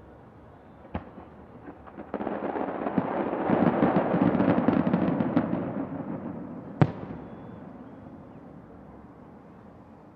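Distant fireworks: a single sharp bang about a second in, then a dense barrage of rapid crackling reports that swells and fades away, another sharp bang near seven seconds, and a long dying echo.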